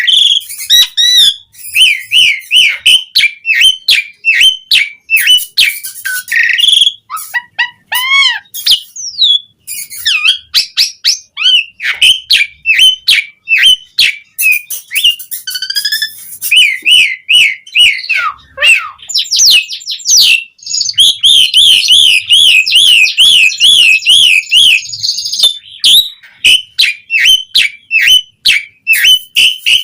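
Asian pied starling (jalak suren) singing a continuous, varied song: quick whistled notes, clicks and chattering phrases follow one another, with a fast warbling trill about two-thirds of the way through.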